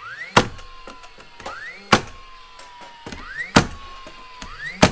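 Cordless 16-gauge finish nailer firing four nails about one and a half seconds apart. Each shot is a short rising whine as the motor spins up, a sharp crack as the nail drives, then a falling tone as the mechanism spins down.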